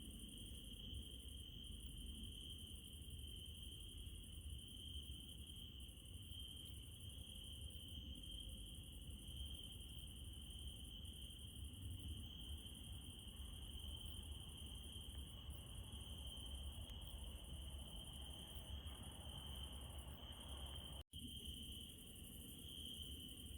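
Night insects trilling in a continuous high-pitched chorus over a faint low hiss. Near the end the sound cuts out for an instant.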